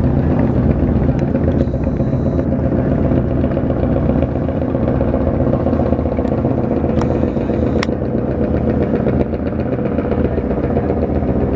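Diesel engine of a river passenger launch running steadily with a deep, even drone. A couple of sharp clicks sound about seven and eight seconds in.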